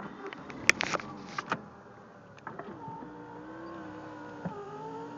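Car's electric power window motor whining steadily as the windows go up, starting a couple of seconds in with a brief dip in pitch about four and a half seconds in. A few clicks and knocks come first.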